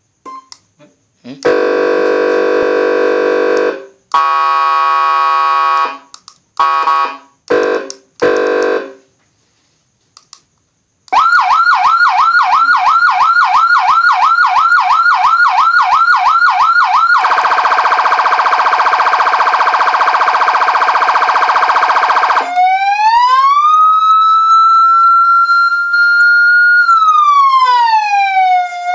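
Federal Signal AS9000B 200-watt electronic siren running through several of its modes. First comes a long horn tone, then a second horn tone and a few short horn blasts. After a pause there is a fast warble of about three cycles a second, a steady horn tone, and a slow wail that rises, holds and falls.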